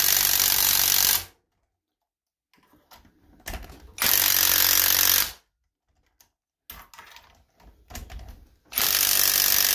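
Cordless impact driver hammering in three bursts on a seized bolt in a Kohler CH18 V-twin's cylinder head, with short clicks and rattles of the tool and socket in between. The bolt does not budge under about 250 pounds of impact.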